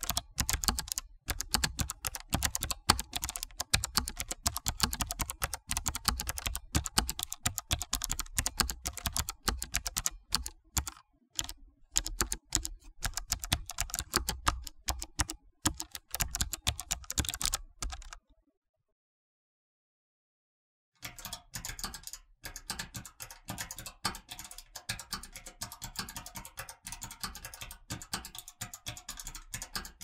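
Mechanical keyboard being typed on, a dense stream of key clicks with heavy low thuds, stopping about eighteen seconds in. After a few seconds of silence a second, lighter and quieter run of typing begins.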